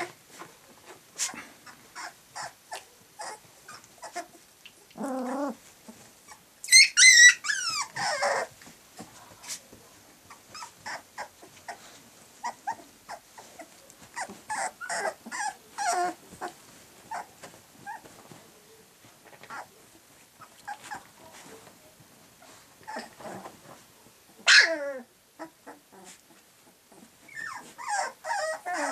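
Three-week-old puppies play-fighting, making small growls and whimpers with many short sounds between. A loud high squeal comes about seven seconds in, and a falling yelp near the end.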